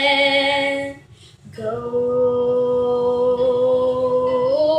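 A girl singing unaccompanied: a held note with vibrato that breaks off about a second in, a short breath, then one long held note that lifts slightly in pitch near the end.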